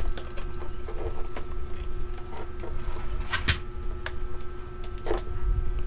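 Scattered small clicks and taps of handling on a workbench over a steady low hum. The sharpest clicks come about three and a half seconds in and again about five seconds in.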